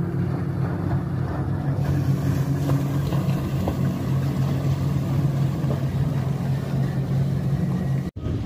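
Motorboat engine droning steadily across the water, at a constant pitch. The sound cuts out for a moment near the end.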